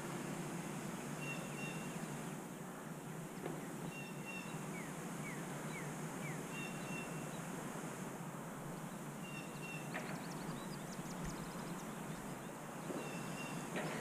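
Faint outdoor background noise, a steady low hush, with short high chirps repeating every couple of seconds and a few quick falling chirps midway.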